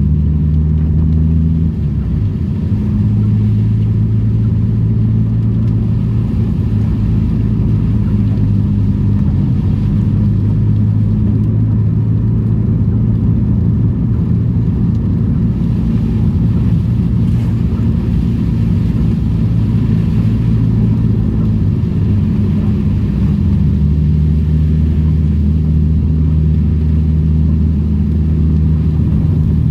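Daihatsu Charade engine running steadily while the car is driven; the engine note changes about two seconds in and again near the end.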